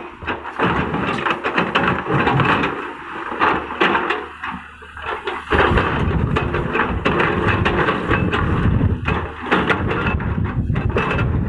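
Excavator at work levelling ground: engine running under a constant clatter of knocks and scrapes from the bucket in soil and stones. A heavier, steady low rumble comes in about halfway through.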